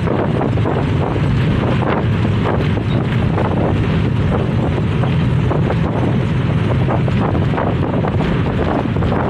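Wind buffeting the microphone: a loud, steady, deep rush with constant small gusts.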